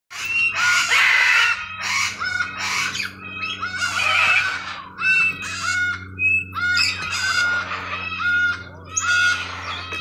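Macaws squawking: harsh, loud calls, one after another, a dozen or so in quick succession.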